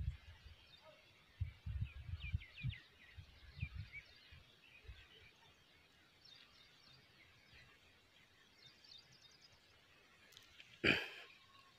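Faint outdoor field sound: low, uneven rumbles in the first few seconds, faint short bird chirps, and a single brief loud burst near the end.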